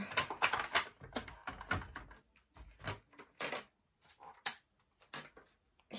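Irregular plastic clicks and clacks from handling a radio-controlled toy tank's hull while fitting its batteries.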